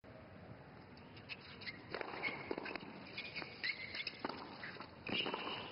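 Quiet tennis stadium crowd ambience between points: a low murmur with scattered small clicks and a few brief high chirps.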